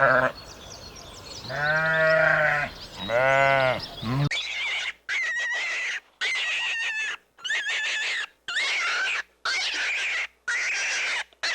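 Livestock bleating: two long, wavering bleats about two and three seconds in. Then an abrupt change to high, chirpy calls, cut into short pieces about a second long with sudden silences between them.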